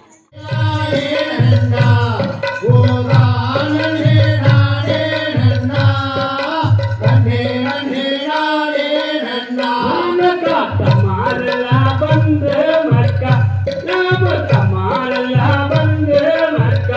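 Tamil folk song for Valli Kummi dance: singing over a repeating low drum rhythm. The drum drops out for about two seconds midway while the singing carries on, then comes back in.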